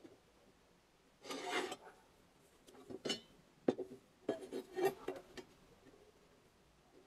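Sheet-steel panels being handled and set against each other on a wooden board: a scrape about a second in, a sharp click near the middle, then a run of short scrapes and taps.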